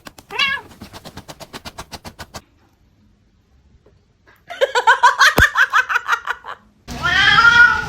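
Quick, even clicks for about two seconds with a short wavering cry among them, a pause, then a run of rapid high-pitched pulsed vocal sounds, and a cat's long falling meow starting near the end.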